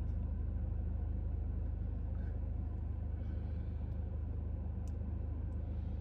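Car engine idling, a steady low hum heard inside the cabin.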